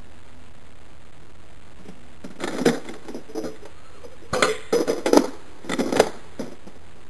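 Plastic clicks and clatter of a Nerf blaster being reloaded by hand, in quick bunches of sharp clicks between about two and a half and six and a half seconds in, the loudest around four and a half to six seconds.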